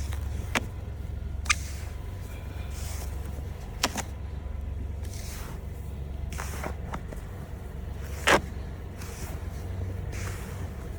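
Car engine idling with a steady low hum, while a snow scraper strikes and scrapes the car four times in short strokes, the loudest and longest about eight seconds in.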